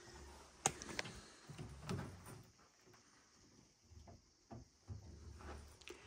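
Faint footsteps and handling noise as someone walks through small rooms, with a few sharp clicks and light knocks.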